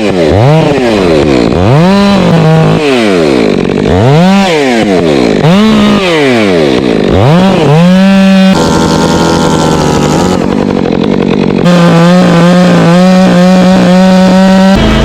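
Chainsaw engine revved up and down over and over, its pitch rising and falling about every second and a half, then held at a steady speed for the last six seconds or so.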